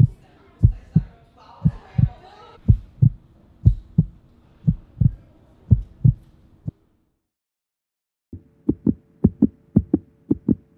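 Heartbeat sound effect: paired lub-dub thumps about once a second over a faint steady hum. The beat cuts out abruptly for over a second, then returns faster.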